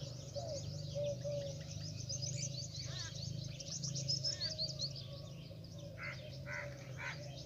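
Small birds chirping and twittering, many short high calls in quick succession, over a steady low hum.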